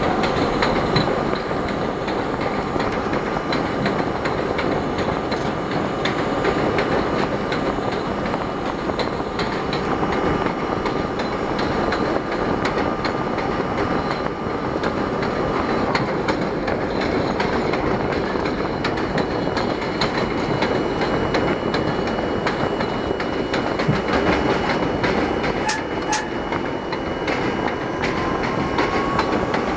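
An R32 subway train running at speed on elevated track, heard from inside the front car: a steady rumble with rapid clicking of the wheels over the rails. A thin steady whine runs through the first half and cuts off about halfway, and a rising whine comes in near the end.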